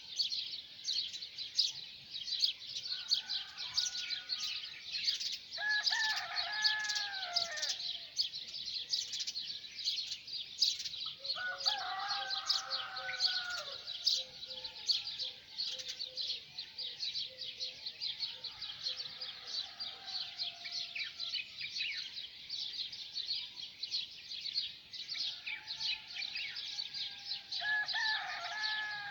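Many small birds chirping rapidly and continuously in a dawn chorus. A lower, drawn-out call with several pitch lines, falling at its end, cuts through three times: about six seconds in, around twelve seconds, and near the end.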